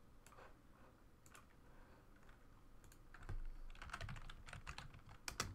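Typing on a computer keyboard: a few scattered keystrokes, then a quick run of keystrokes starting about three seconds in.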